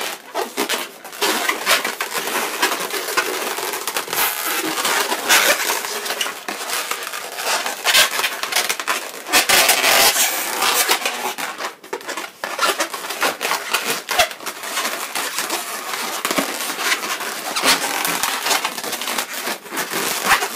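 Latex twisting balloons rubbing and squeaking against each other and against the hands as sections are twisted and pushed into place: a dense, unbroken run of scraping and crackling.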